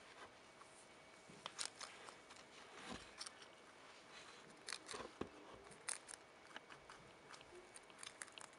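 Faint rustling of cloth and newspaper bedding, with scattered small clicks and crackles, as a hand moves about inside a baby rabbits' nest.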